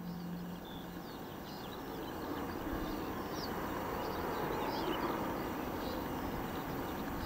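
Colas Rail Class 70 diesel locomotive hauling a freight train past, a rushing rumble of engine and rail noise that builds over the first few seconds, with birds chirping. Background music fades out in the first second.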